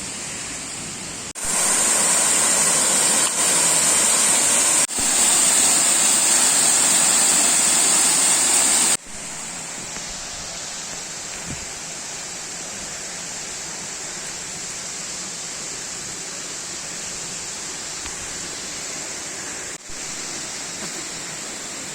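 Waterfall water rushing, a steady even noise. It is much louder for a stretch from about one and a half to nine seconds in, and the level jumps abruptly between shots.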